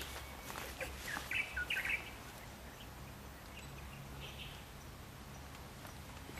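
Faint outdoor ambience with a few short bird chirps, a cluster about a second and a half in and a fainter one past four seconds, over a steady low rumble.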